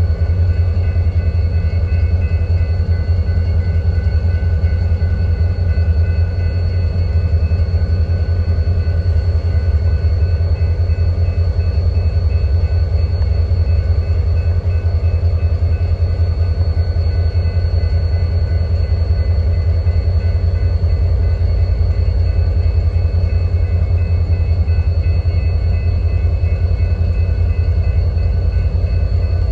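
A train passing with a steady, loud low rumble and faint, steady high-pitched tones above it.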